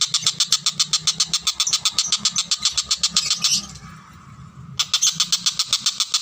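Tengkek buto kingfisher giving a rapid, rattling chatter of sharp notes at about eight a second. The chatter breaks off for about a second a little past the middle, then resumes.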